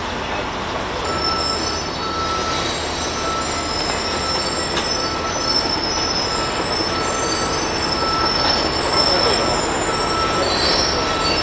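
Loud, steady machinery noise with thin, high metallic squealing tones that come and go over it.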